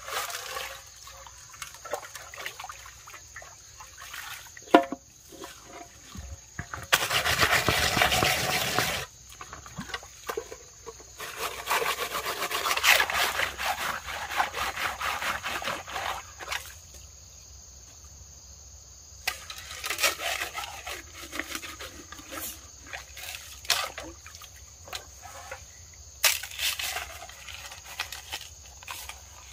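Water splashing and sloshing as metal pots and a plate are rinsed and scrubbed in a shallow stream, coming in bursts, with a single sharp knock about five seconds in. A steady high insect buzz runs underneath.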